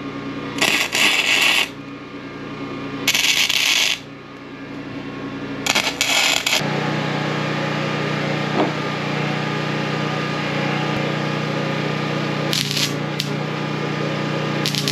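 Arc welding on steel, heard as short sputtering bursts of about a second each, four of them in the first seven seconds, tacking a roller cable guide box. A steady low machine hum then takes over, with two more brief welding bursts near the end.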